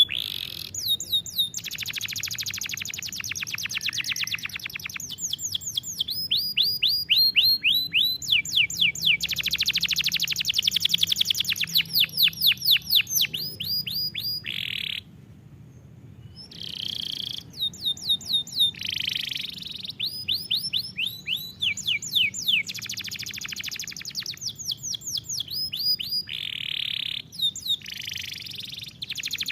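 Domestic canary singing: phrases of rapidly repeated notes, some as fast high trills and some as runs of quick sweeping chirps, with a brief pause about halfway through.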